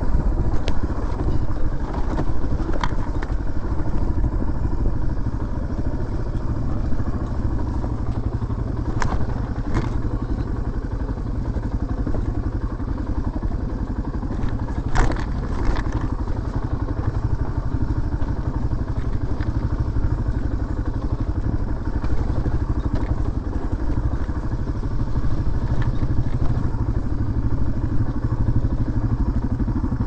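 Dual-sport motorcycle engine running steadily as the bike rides a rocky dirt trail, heard close up. A few sharp knocks and clatters come through, the loudest about halfway through.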